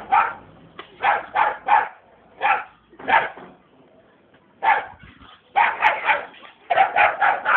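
Small dog barking repeatedly at a man, in quick bunches of two to four barks with short pauses between them.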